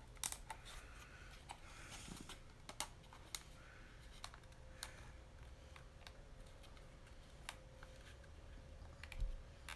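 Light, scattered wooden clicks and taps, with soft scraping, as a small spring-loaded wooden drawer is pushed into its box to test the fit.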